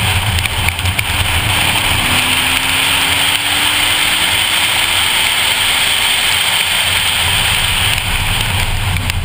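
A 2014 Ford Focus ST's turbocharged four-cylinder engine pulling on wet track, its note rising slowly from about two seconds in, under a steady loud hiss of wet tyres, spray and wind, heard from inside the cabin.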